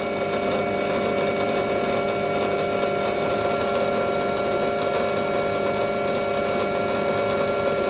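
Small metal lathe running steadily at speed, a constant motor and spindle hum with a few steady tones over it.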